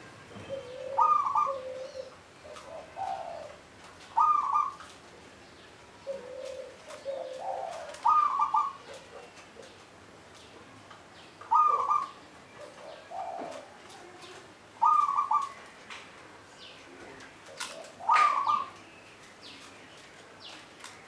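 Local Javanese zebra dove (perkutut lokal) cooing: the same phrase repeats about six times, roughly every three to four seconds, each with a loud higher note and softer lower notes.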